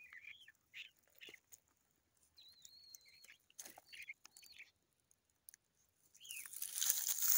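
Skunk rooting in dry soil and leaf litter with its nose: soft snuffling and chewing sounds with scattered clicks, and a louder rustling hiss near the end. Short, high chirping squeaks come and go over it, with one longer wavering squeak about two and a half seconds in.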